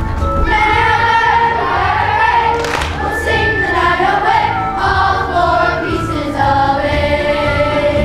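A group of children singing together in chorus, with instrumental accompaniment underneath.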